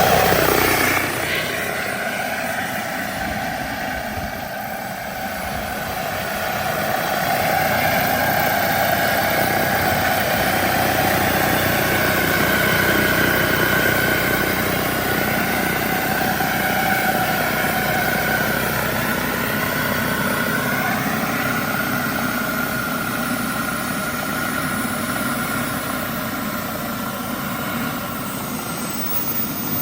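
Radio-controlled Bell 212 scale helicopter running on its JetCat PHT-3 XL model turbine: a steady turbine whine mixed with rotor sound, its pitch drifting slowly up and down. The pitch falls sharply about a second in.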